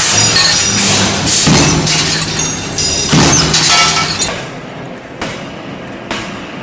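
Intro music punctuated by crashing, glass-shattering hits about every second and a half. About four seconds in it cuts to a quieter machine clatter with a sharp knock roughly once a second.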